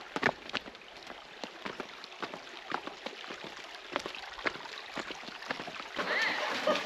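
Irregular footsteps and knocks on rock over the steady rush of running water.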